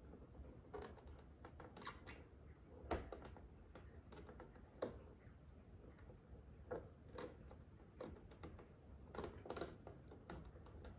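Faint, irregular light clicks and taps, about fifteen in all, of hands handling and fitting small plastic radar-detector mounting parts.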